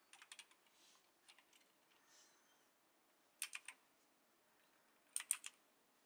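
Keystrokes on a backlit Logitech gaming keyboard, typed in short bursts of three or four quick clicks with pauses between. The two bursts in the second half are the loudest.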